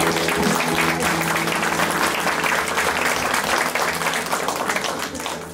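Church congregation applauding, a dense patter of many hands clapping that thins out near the end.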